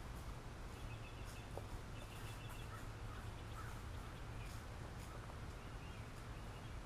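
Faint outdoor ambience: scattered short bird chirps over a low, steady hum.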